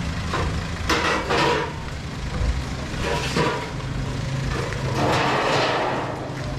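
A motor running steadily, with three short bursts of hissing noise about a second, three seconds and five seconds in.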